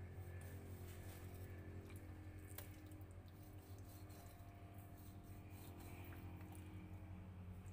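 Faint, soft knife cuts as a blade scores the flesh of a raw carp on a plastic cutting board, with a few light clicks, over a steady low hum.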